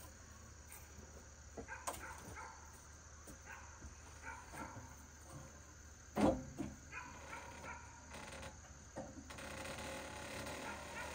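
Quiet handling sounds of a poplar board being shifted and set on a sawmill bed: scattered light knocks and scrapes, with one louder knock about six seconds in.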